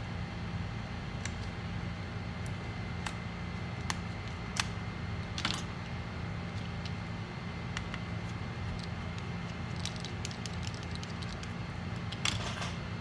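Scattered light metallic clicks and taps of small screwdrivers and tiny screws being handled while taking a MacBook Pro apart, with a short flurry of clicks and rustling near the end, over a steady low hum.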